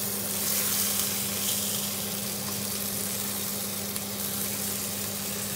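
Whole herring, floured and scored, sizzling steadily in hot oil in a frying pan as they are turned over with a spatula, under the steady low hum of a cooker extractor fan.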